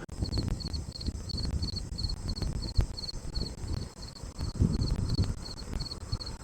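Crickets chirping in a steady rhythm of short, high trills, about three a second, over a low, uneven rumbling noise.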